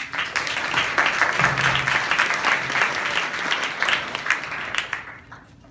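Audience applauding: dense clapping that starts at once, then thins out and stops about five seconds in.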